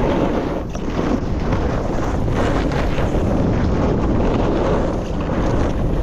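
Wind rushing over the microphone while a snowboard carves down a groomed slope, its edge scraping across the snow in swells with each turn.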